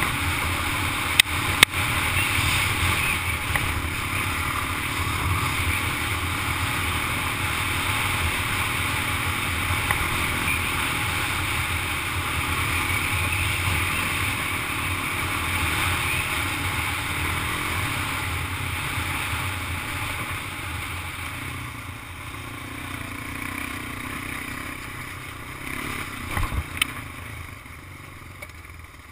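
Honda ATV engine running steadily under way, with a constant rushing hiss over it. Two sharp knocks come about a second and a half in, and the sound grows quieter over the last several seconds.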